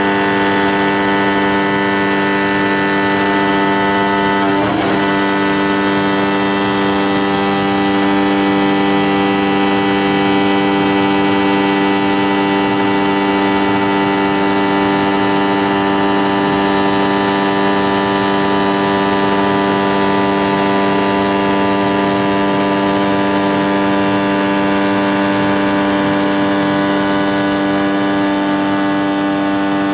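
CNC woodworking machining centre running: a steady drone of several held tones over a hiss, with a brief wavering about five seconds in.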